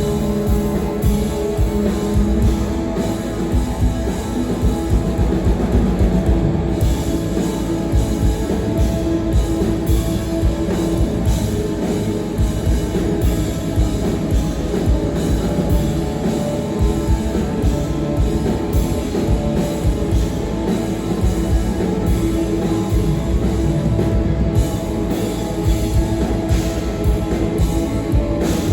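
A rock band playing live, with loud drums and guitar running without a break.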